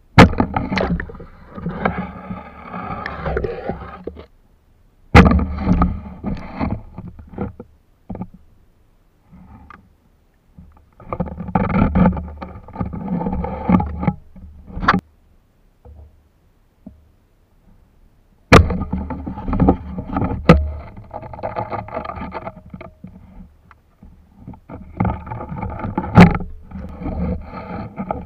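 Shallow seawater sloshing and splashing in several bursts of a few seconds each, with sharp knocks at the start of some, from wading through tidal shallows.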